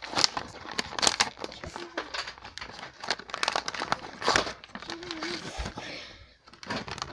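Clear plastic toy packaging and its card backing crinkling and crackling as they are pulled and worked open by hand, in irregular sharp crackles.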